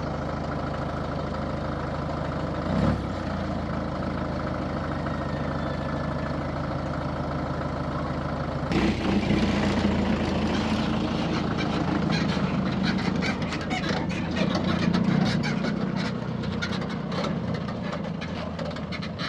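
Truck engine running steadily; about nine seconds in the sound changes abruptly to a louder, rougher engine sound with rattling clicks.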